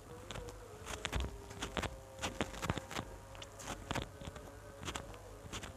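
Close-miked chewing and wet mouth sounds of a person eating rice, fried fish and raw leaves by hand: irregular smacks and clicks, a few every second, over a faint steady hum.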